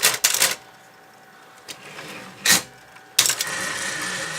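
Sears SR2000 electric typewriter mechanism: sharp clacks at the start, a single click partway through, then about three seconds in a steady motor whir with a faint whine lasting over a second, as the freshly oiled power carriage return runs, still sticking a little.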